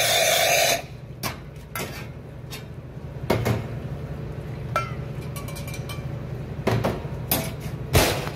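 Espresso machine running at the end of a shot, cutting off abruptly within the first second. Then scattered light metallic clinks from a stainless steel pitcher being moved and set down, and near the end a sharp metal knock as the portafilter is handled, over a steady low machine hum.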